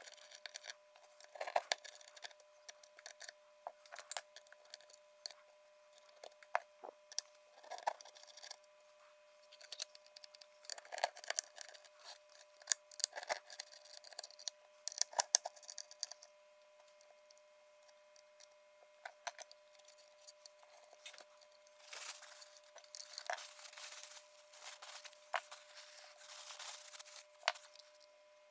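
Cloth rubbing and wiping over a dismantled floppy disk drive's metal mechanism, with scattered small clicks and taps as parts and screws are handled. A faint steady tone sits underneath.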